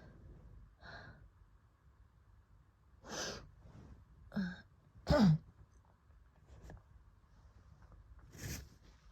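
A woman coughing during an asthma attack after COVID: several separate coughs spread out, the loudest about five seconds in, with fainter breaths between.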